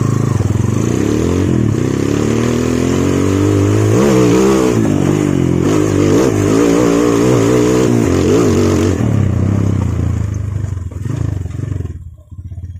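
Motorcycle engine with a slide-type Honda Tiger carburetor climbing a dirt track under load. Its pitch rises and falls over and over as the throttle is worked, and the rider finds the carburetor's response good. The engine sound cuts off suddenly near the end.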